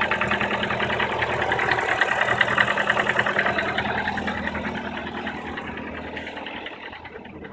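Nissan QR20DE 2.0-litre four-cylinder engine running cold with a fast, even, rhythmic knock, which fades over the last few seconds. The owner describes it as a cold-engine knock that lasts until warm-up, and its cause has not been found: disconnecting coils doesn't change it, valve clearances are in spec, and the chain and tensioner have been replaced.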